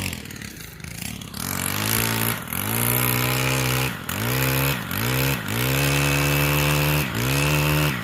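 Small two-stroke gas saw engine revved hard in repeated bursts, the throttle let off briefly about five times and opened up again each time, as when cutting limbs. It cuts off abruptly near the end.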